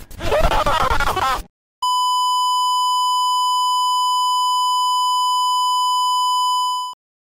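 A short burst of rough noise for about a second and a half. Then, after a brief gap, a steady electronic tone at about 1 kHz holds for about five seconds and cuts off abruptly.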